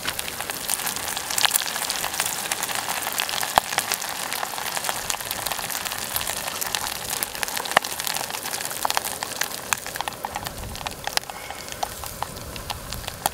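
Coated cuttlefish rings deep-frying in a small pot of hot oil, sizzling with dense, fast crackling and spitting pops, a little quieter in the last few seconds. Near the end come a few low knocks as the rings are lifted out.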